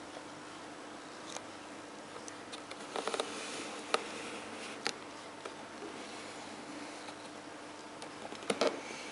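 Light handling noise: a few scattered taps and clicks, a cluster around three to five seconds in and another short one near the end, over a faint steady hum.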